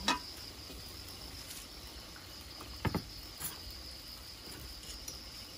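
Steady high chirring of crickets in the night, with two sharp knocks, one at the start and one about three seconds in.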